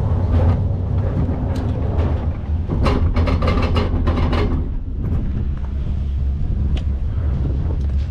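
Wind rumble on the microphone while riding a downhill mountain bike, with a burst of rattling and clattering from the bike over rough ground about three seconds in and a few single clicks later.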